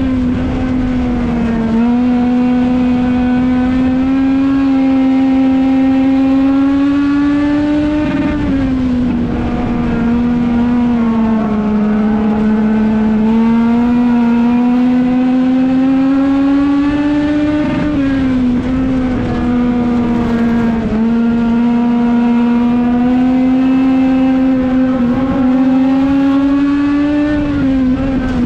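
Legends race car's Yamaha four-cylinder motorcycle engine heard from inside the car at racing speed. The engine note climbs slowly along each straight and dips briefly as the throttle is lifted for the turns, about every nine seconds.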